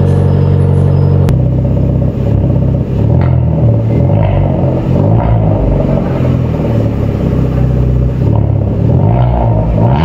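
Hyundai Verna engine through a loud aftermarket exhaust. It runs steadily for about a second, then is revved in repeated blips, its pitch rising and falling with each rev.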